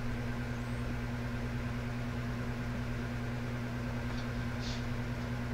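Electric fan running steadily: a constant low hum under an even airy hiss.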